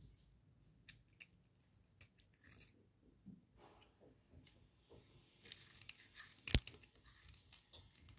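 A metal blade scraping and shaving a wet slate pencil: soft, gritty scrapes and small crunchy clicks with pauses between strokes, and one sharper click about six and a half seconds in.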